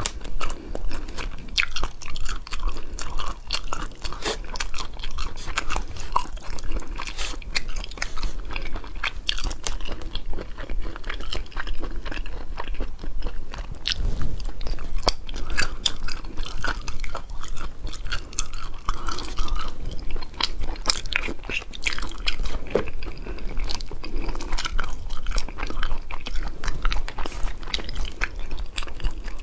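A person chewing and biting food close to the microphone: a steady run of sharp clicks and mouth sounds.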